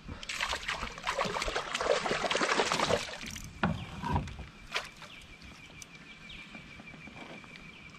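Water splashing and churning at the kayak's side as a small hooked redfin perch is fought to the boat, loud for about three seconds. After that come a few sharp knocks and a faint, steady high-pitched tone.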